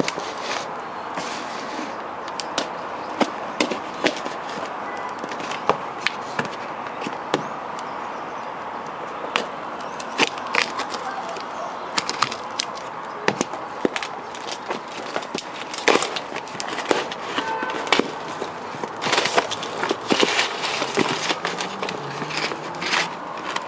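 Cardboard shipping box being handled and opened by hand: scattered knocks, taps and scrapes of cardboard and packing paper, thicker in the second half, over a steady background hiss.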